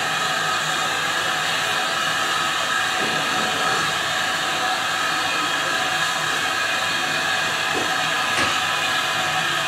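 Steady hiss of steam from a locomotive standing at the head of its train, with steady tones running through it. One light knock near the end.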